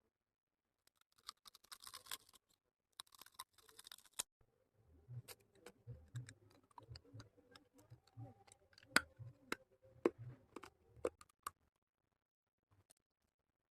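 Close-miked eating sounds: a few seconds of crackly, crunchy noise, then chewing with many sharp wet mouth clicks over low thuds, stopping near the end.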